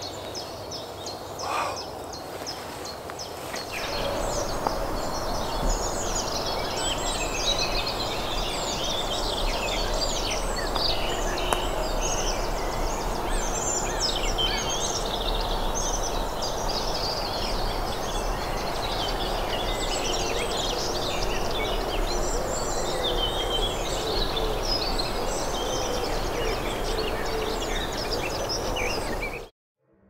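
Many small songbirds singing and calling at once, a dense stream of chirps and trills, over steady background noise; it cuts off abruptly near the end.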